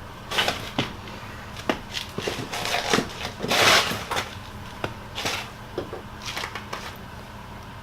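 Scattered light clicks and knocks of hands and tools working loose a car's plastic trim panel, with a louder scraping rustle about three and a half seconds in, over a steady low hum.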